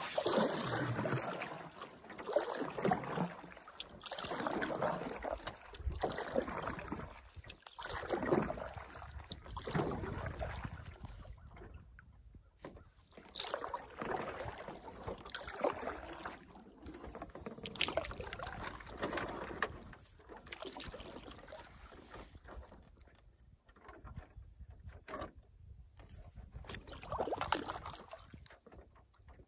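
Water sloshing against the hull of a canoe, swelling and fading about every two seconds, with a few light knocks.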